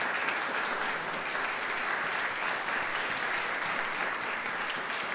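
Audience applause, steady clapping that holds at an even level throughout.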